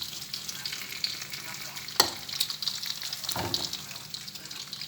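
Jackfruit pieces frying in hot oil, a steady sizzle and crackle. There is a sharp clink about two seconds in, and a softer knock over a second later.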